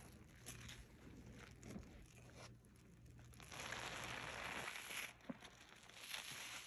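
Soft crinkling and crackling from a sponge squeezed in rubber-gloved hands, turning into a steadier hiss a little past halfway, with one sharp click.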